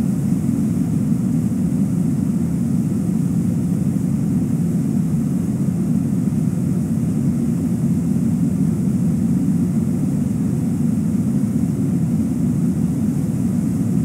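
River rapids rushing: a steady, unbroken low roar of whitewater.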